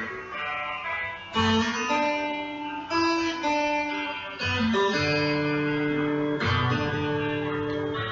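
Background guitar music, plucked notes struck and held.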